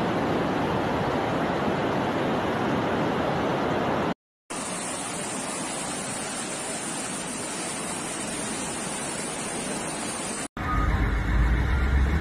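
Floodwater rushing, a steady noise, broken by a short gap of silence about four seconds in. Near the end it cuts to a louder, deeper rumble.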